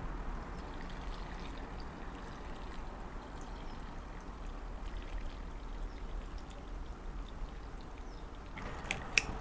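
Hot water poured steadily from a glass pitcher into a stainless-steel insulated food jar onto dry glass noodles, a quiet trickle. A single sharp click near the end.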